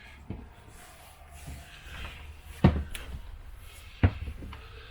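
Footsteps climbing the steps up to a fifth-wheel trailer's raised front bedroom: a few dull thumps, two of them louder, with faint rustling between.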